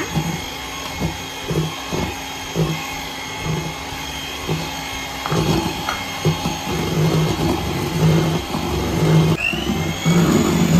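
Frigidaire electric hand mixer running, its beaters whisking melted butter into cake batter in a steel bowl, with a steady motor whine that rises in pitch near the end.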